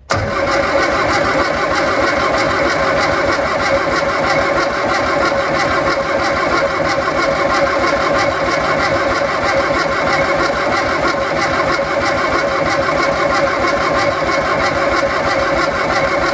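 Austin-Healey Sprite's 948 cc A-series four-cylinder engine cranking over steadily on its starter motor for about sixteen seconds without firing, its carburettors not yet connected to the fuel lines. The long crank is to get the new mechanical fuel pump to draw fuel up from the tank.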